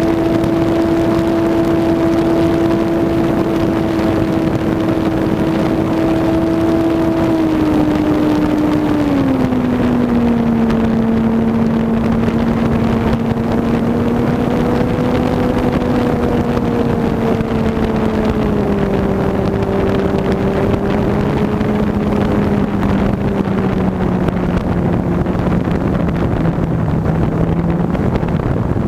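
ParkZone T-28 Trojan RC airplane's electric motor and propeller whining steadily in flight, heard from the onboard camera with wind rushing past. The pitch steps down about 7 and 9 seconds in and sinks lower again later in the flight.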